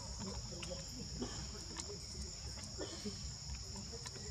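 A steady, high-pitched insect chorus drones without a break over a low background rumble, with a few faint scattered clicks.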